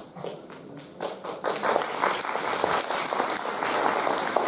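Audience applauding, starting about a second in and building quickly to steady clapping.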